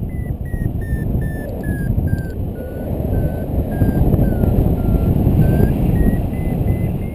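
Paragliding variometer beeping about twice a second, its pitch sliding down over the first few seconds and climbing again near the end: the climb signal weakening, then strengthening. Wind rushes over the microphone throughout.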